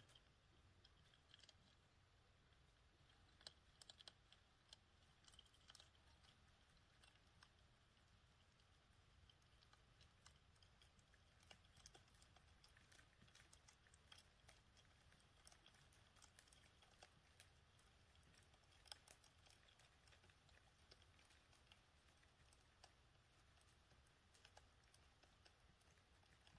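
Near silence: room tone with faint, irregular small clicks.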